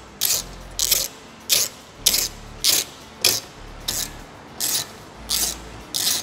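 Hand socket ratchet clicking in short runs about twice a second as it is swung back and forth, driving a 4 mm Allen bit on a long extension to tighten bracket mounting bolts.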